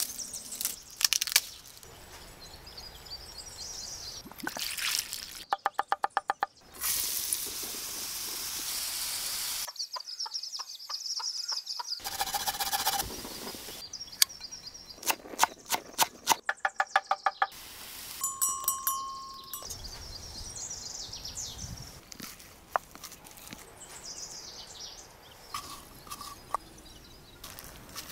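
Food-preparation sounds in quick cuts: runs of rapid knife chops, a few seconds of steady hiss, scattered knocks, and near the end hands squishing a mashed potato and herb filling in a bowl. Birds chirp faintly in the background.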